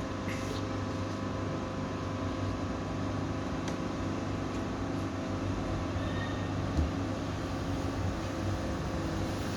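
A steady mechanical hum made of several held tones, with one short low knock about seven seconds in.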